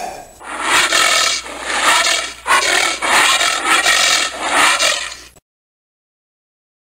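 Giant anteater giving a run of about five or six harsh, noisy calls in quick succession, which cut off suddenly a little past halfway.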